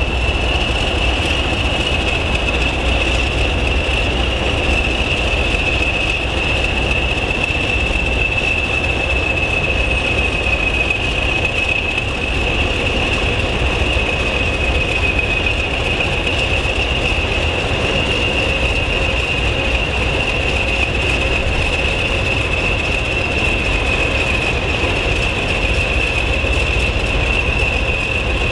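A pair of Class 20 diesel locomotives passing slowly, their English Electric 8SVT engines running with a steady high turbocharger whistle over a low rumble.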